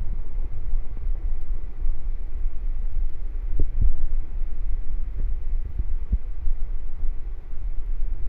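A person's stomach growling, recorded close up: a steady low rumble with a run of short gurgles from about three and a half to six and a half seconds in.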